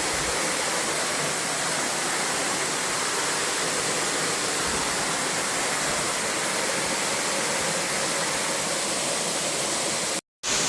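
Steady rushing of a waterfall, with a brief cut to silence near the end.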